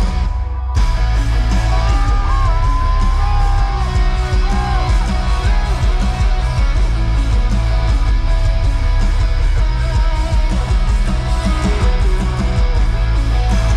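Live rock music through loud concert speakers: an electric guitar plays a lead line with gliding, bent notes over heavy bass. The sound dips briefly just after the start, then carries on.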